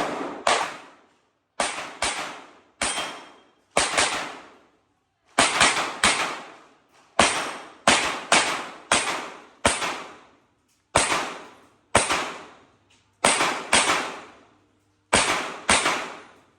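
Handgun shots fired in quick pairs and short strings, about two dozen in all, with brief pauses between groups, each shot followed by a short echo.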